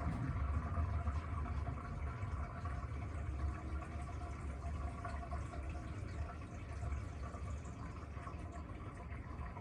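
Panasonic washing machine running, with water pouring and splashing into the tub over a steady low hum.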